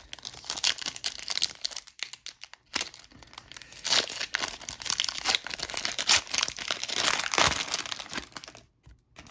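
Foil wrapper of an O-Pee-Chee Platinum hockey card pack being torn open and crinkled by hand, a dense crackling with a short lull about two seconds in. It stops shortly before the end.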